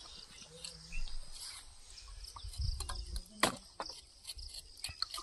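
Insects chirping steadily in the grass, with scattered clicks and knocks from fish being cut and handled with a knife; the loudest knock comes about three and a half seconds in.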